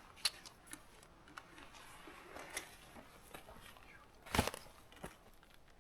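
Quiet handling noises: scattered small clicks and rustles, with one louder rustle about four and a half seconds in, as of snack packaging and a water bottle being handled.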